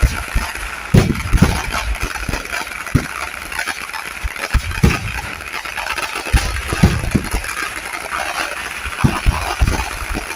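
Fireworks going off in an irregular string of deep booms, one every second or two, over a steady crackling haze.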